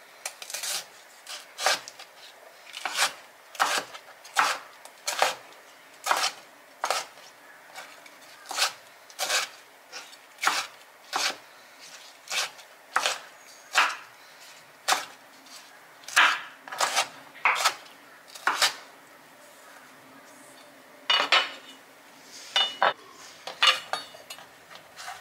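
Chef's knife chopping tomato on a bamboo cutting board: sharp knocks of the blade hitting the board about once a second. Near the end, after a short pause, a few quicker, irregular knocks.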